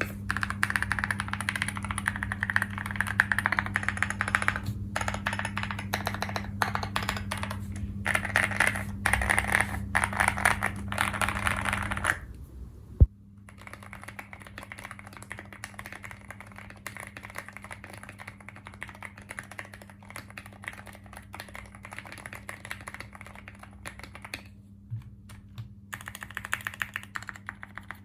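Fast typing on a mechanical keyboard with plastic keycaps: a dense stream of clacking keystrokes, with a steady low hum underneath. About twelve seconds in the typing drops to a quieter level, followed by one sharp knock.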